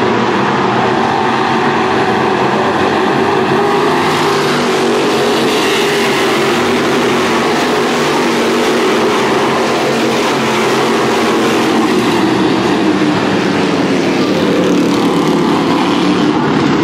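A field of V8 Thunder Stock race cars running together at racing speed, several V8 engines heard at once, their pitch rising and falling as the cars circulate.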